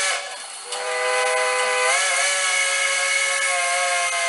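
A model-locomotive DCC sound decoder plays a steam whistle of several tones at once through a small mobile-device speaker, over a steady steam hiss. One blast cuts off just after the start. A second, long blast begins under a second in and holds, stepping slightly up in pitch about two seconds in.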